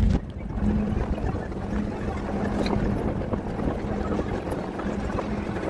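Truck driving on a sandy dirt road: a steady engine drone under tyre and road noise, with wind rushing in through an open side window.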